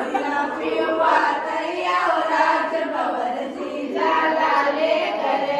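A group of women singing together.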